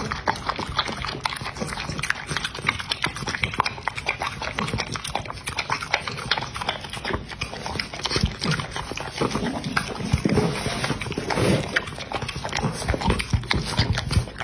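A dog licking and lapping raw egg off a metal plate: a quick, uneven run of wet tongue clicks and smacks against the plate.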